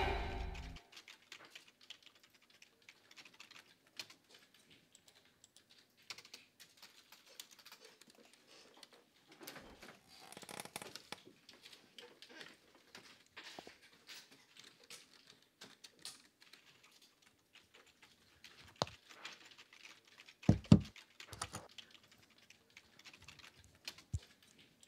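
Quiet office room tone with scattered clicks of typing on a computer keyboard. A couple of soft thumps come about twenty seconds in.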